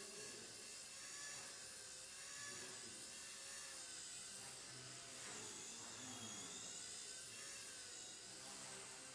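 XK K100 micro RC helicopter in flight, its brushless motors and rotors whining steadily with the pitch wavering up and down as it manoeuvres, and a falling sweep about five to six seconds in. It runs without abnormal noise.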